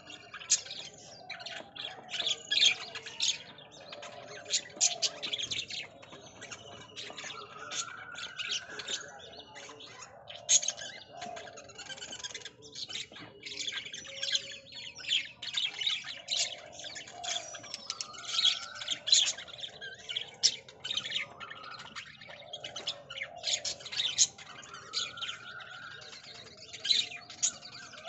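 Birds chirping: many short, sharp chirps one after another, with a rising call now and then.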